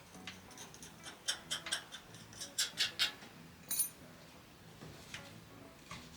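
Light clicks and taps of hands and small objects being handled while cleaning, about a dozen in quick succession over the first three seconds, then a sharper high click near four seconds and a few faint ones near the end.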